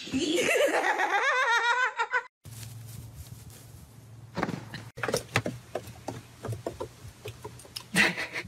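A person's high-pitched, warbling laugh, rising in pitch for about two seconds, then cut off abruptly. After it come quieter scattered knocks and brief bits of voice.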